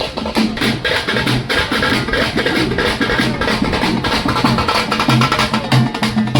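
Background music with a steady drum beat and percussion.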